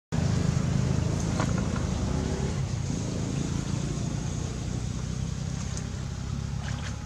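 Steady low rumble that slowly fades, with a few faint clicks.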